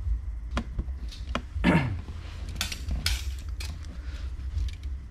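Metal parts being handled and set down: a series of separate clinks and knocks, with a longer falling scrape a little under two seconds in, over a steady low rumble.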